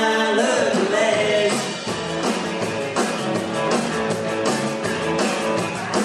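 Rock and roll song with singing, guitar and a steady beat, a live recording taken from the mixing desk.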